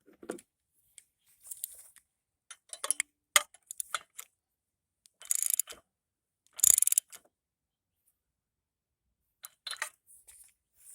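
Scattered metallic clicks and taps of a socket wrench being worked while a new spark plug is fitted to the wood chipper's engine, with two short runs of rapid clicking about five and a half and seven seconds in.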